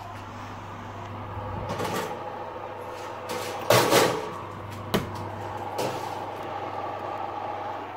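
Springform cake tins set onto the wire racks of an open oven: several short metal clanks and scrapes, the loudest about four seconds in, over the steady hum of the oven's fan.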